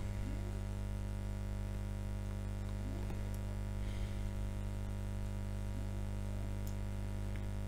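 Steady electrical mains hum with a buzz of evenly spaced overtones and a faint hiss, unchanging throughout; no other distinct sound.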